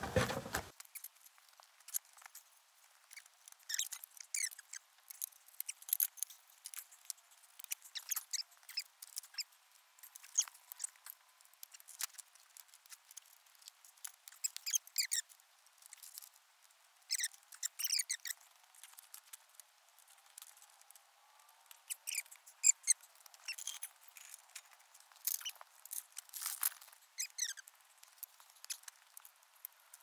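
Light metallic clicks, knocks and short squeaks of metal frame tubing and fittings being handled and fitted together, scattered irregularly.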